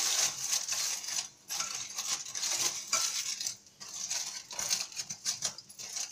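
Aluminium foil crinkling as it is pressed and crimped around the rim of a baking tray, in a run of short crackly bursts broken by a few brief pauses.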